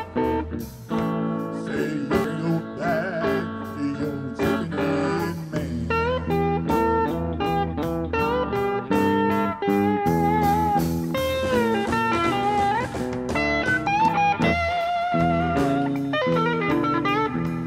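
Live blues band playing an instrumental break: an electric guitar takes the lead with bent, wavering notes over bass and drums.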